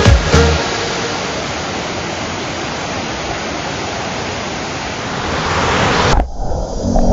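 A waterfall's water rushing steadily, an even, loud hiss that swells a little before cutting off abruptly about six seconds in. The last notes of background music end in the first half-second.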